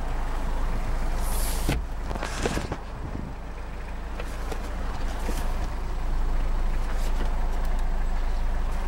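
Toyota Land Cruiser Prado's 2L-T four-cylinder turbo-diesel running steadily at idle, heard from inside the cabin. A few clicks and rustles of handling come about two seconds in.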